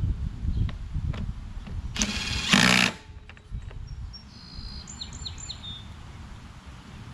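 Recoil starter on a Kohler XT675 mower engine pulled once: a loud whirring rasp of about a second, about two seconds in, as the rope spins the engine over without starting it. It comes after some handling knocks, and a few short bird chirps follow.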